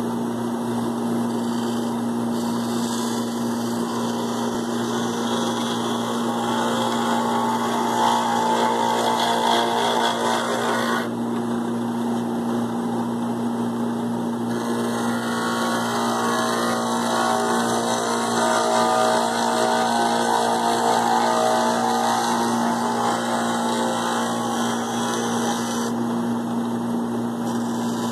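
Wood lathe running with a steady motor hum while a hand-held turning tool cuts a spinning wooden spindle, the cutting hiss swelling and easing as the tool works. The cutting stops for a few seconds about eleven seconds in and again briefly near the end, leaving the motor hum.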